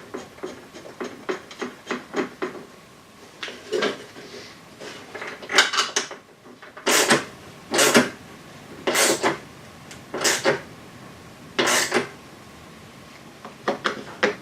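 Hand tools working on the metal wiper linkage: a run of light clicks, then louder rattling strokes about a second apart, like a ratchet being worked.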